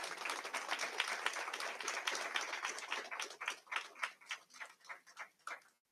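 Audience applauding, thick at first, then thinning to a few scattered claps after about three seconds and stopping near the end.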